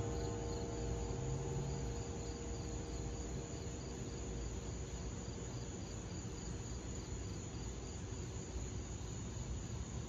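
Crickets chirping in a regular rhythm, with the last tone of a church bell dying away in the first couple of seconds.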